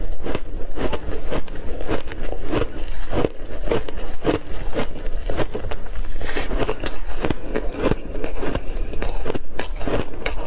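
Mouthful of block ice frozen with mixed berries and coated in matcha powder being chewed close to the microphones: a steady run of crunches, about two or three a second.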